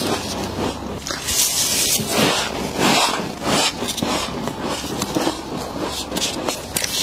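Humidifier-grown frost being scraped and crunched: a run of short, crisp scraping and crunching noises, a few a second.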